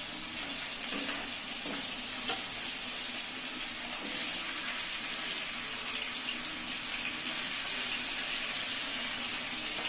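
Black pomfret pieces frying in hot mustard oil in a nonstick kadai: a steady sizzle, with a few light taps of a wooden spatula in the first couple of seconds.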